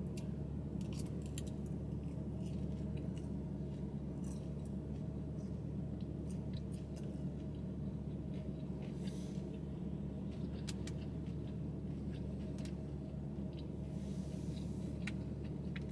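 Eating sounds: chewing, and small scattered clicks of a plastic fork in a foam takeout container, over a steady low hum.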